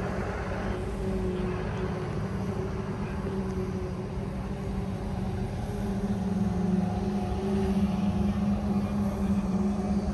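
An engine running at a steady speed, giving a constant low hum that grows somewhat louder in the second half, over a low rumble.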